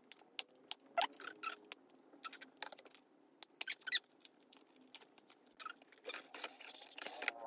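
Crackling and crinkling of plastic shrink wrap being peeled off a folded cardboard game board, in scattered sharp clicks with a few small squeaks. A denser rustle comes near the end as the board is unfolded.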